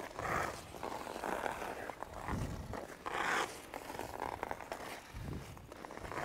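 Ice hockey skate blades cutting into the ice as a skater strides and changes edges, a scraping stroke about once a second, the loudest a little past the middle.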